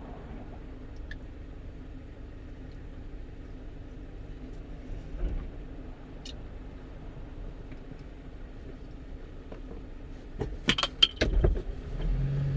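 Steady in-cab engine and road hum of a 1-ton truck driving along. Near the end comes a short burst of sharp clicks and rattles.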